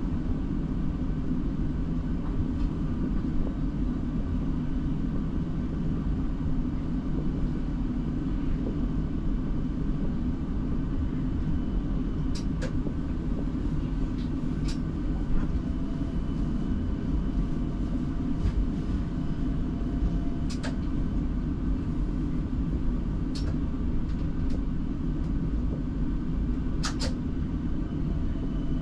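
Siemens Combino tram heard from the driver's cab: a steady low rumble with a few sharp clicks scattered through it.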